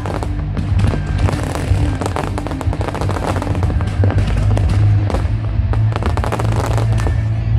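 Fireworks going off in a dense, irregular run of bangs and crackles, over loud music with steady held bass notes.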